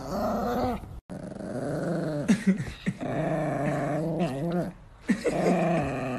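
Chihuahua growling in long, steady stretches with short breaks between them; the sound drops out briefly about a second in.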